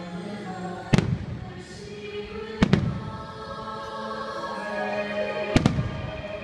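Aerial firework shells bursting with three sharp bangs, about one, two and a half, and five and a half seconds in, over the fireworks show's music.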